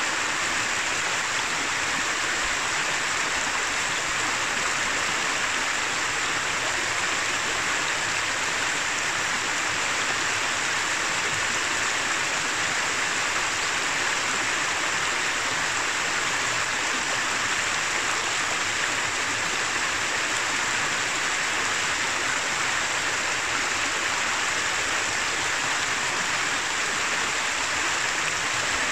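Shallow mountain river, the upper Noguera Pallaresa, running over a bed of stones: a steady, even rush of water, bright and hissy with little low rumble.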